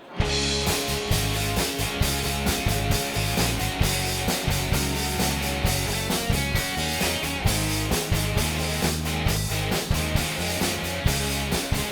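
Instrumental intro of a country-rock song: a full band with drum kit, bass and guitars playing a steady driving beat, starting abruptly at the very beginning.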